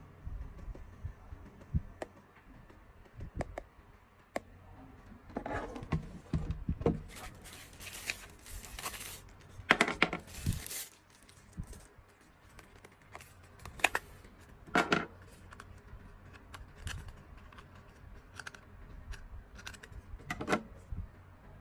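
Handling noises of unpacking: scattered clicks and knocks, with several short bursts of packaging rustling and tearing, the loudest about ten seconds in.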